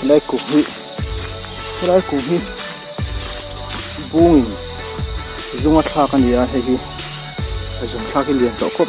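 Loud, steady, high-pitched drone of forest insects. Underneath it, a short pitched sound that rises and falls comes and goes about five times.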